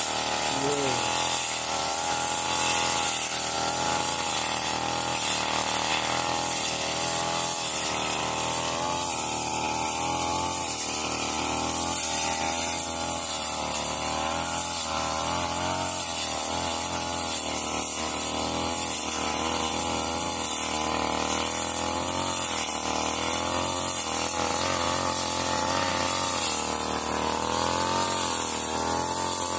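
Backpack petrol brush cutter running hard while its blade cuts grass and woody undergrowth, the engine pitch rising and falling throughout.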